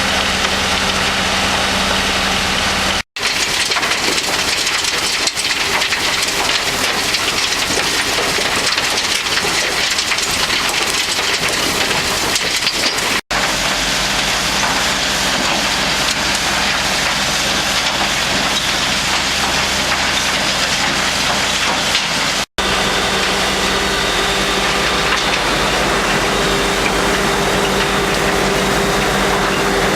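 Mobile trommel screen running on mixed construction and demolition waste: a steady diesel engine hum under a dense, constant clatter and hiss of rubble tumbling in the rotating drum. The sound breaks off for an instant three times.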